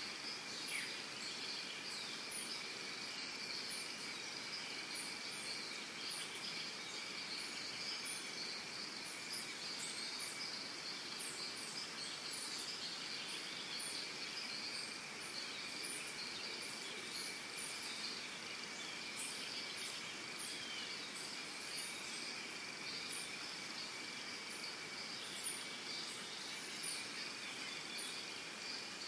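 Steady chorus of insects, a continuous high drone at two pitches, with scattered faint short ticks on top.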